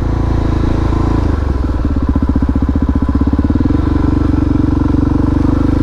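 Harley-Davidson Dyna's V-twin engine running at low revs under way, throttle held back to keep it quiet. About a second in, the separate firing pulses come through as a lumpy beat, which smooths out again a little past halfway.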